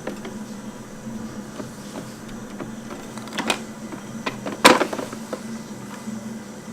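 Plastic clicks and knocks from a coffee machine being handled, a few scattered through, the loudest a sharp knock about two-thirds of the way through, over a steady low hum.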